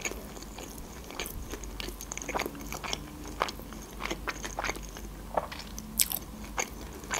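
Close-miked chewing of a mouthful of sushi roll: irregular soft mouth clicks and smacks, with a sharper one about six seconds in.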